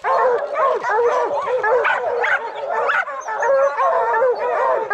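A pack of bear hounds baying and barking at a treed bear, many voices overlapping without a break. This is tree barking: the sign that the hounds have the bear up a tree.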